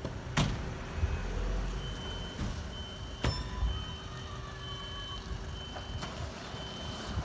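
High-pitched warning beeper repeating about once a second, like a truck's reversing alarm, over the low running of a truck engine. Two sharp knocks, one near the start and one about three seconds in.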